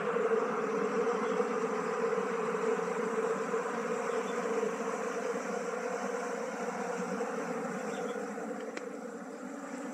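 A colony of honeybees buzzing in a dense, steady hum as they are disturbed and scooped by hand out of a hollow log hive.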